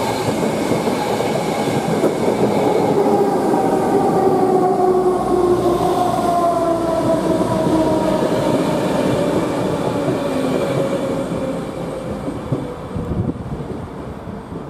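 ÖBB class 4020 electric multiple unit running along the platform, its motor whine falling steadily in pitch as it slows, over wheel and rail noise. It is loudest a few seconds in and fades toward the end.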